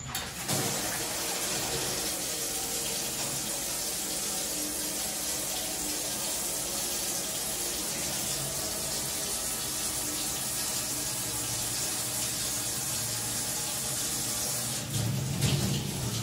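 Kitchen tap running steadily into a stainless-steel sink, the water splashing on the metal basin. Near the end it grows louder and deeper for about a second.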